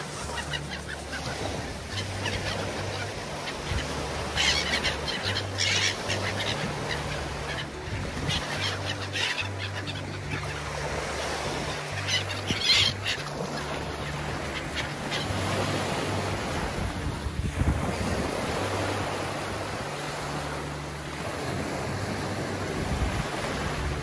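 Gulls calling, several short honking cries in the first half, over the steady wash of sea waves.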